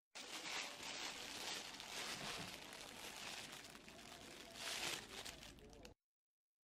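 Thin plastic bag crinkling and rustling as it is handled, louder in the first second or so and again near the end. The sound starts and stops abruptly.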